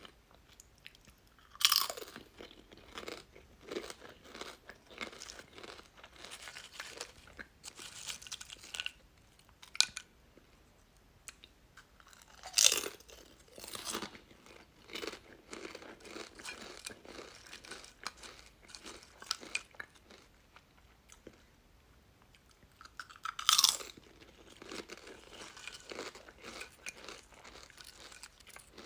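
Someone eating crunchy chips: three loud bites, about ten seconds apart, each followed by a run of crunchy chewing.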